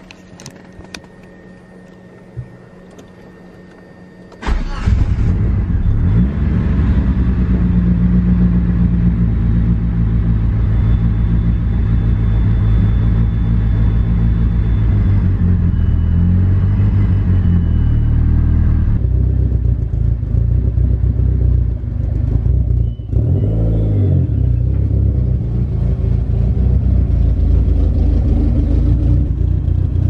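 Turbocharged 4G63 inline-four of a first-generation Eagle Talon started with the key: a steady whine from the fuel pump running with the ignition on, then about four and a half seconds in the engine cranks briefly, catches and settles into a loud, steady idle.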